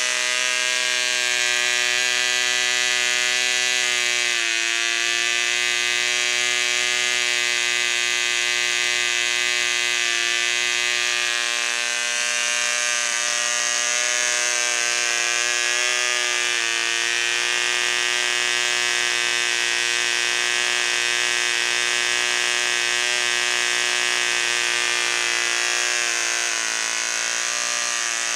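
Homemade 1.6 cc twin-cylinder boxer model diesel engine running flat out with a steady high buzz. Its speed dips briefly about four and sixteen seconds in and sags slightly near the end. The builder says it runs badly: the rear cylinder fills better, so the front one barely fires.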